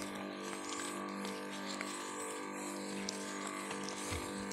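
Motorized knapsack sprayer's pump running with a steady hum while the lance sprays a fine mist.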